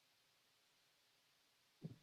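Near silence: faint room tone, with one brief low thump near the end.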